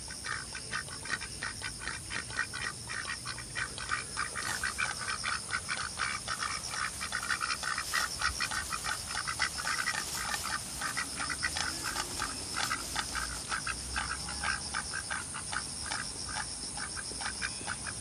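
Domestic ducks quacking in a rapid, continuous chatter of several calls a second. A steady high-pitched hiss or buzz runs underneath.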